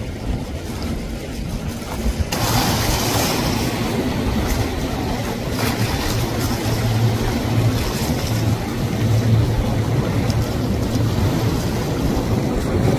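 Outboard-powered speedboat running past at speed: a steady low engine drone under the rush of the hull and wake spray. The sound jumps louder about two seconds in, over wind on the microphone.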